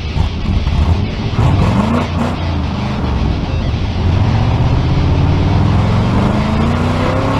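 Car engine revving, its pitch climbing steadily over several seconds before cutting off abruptly.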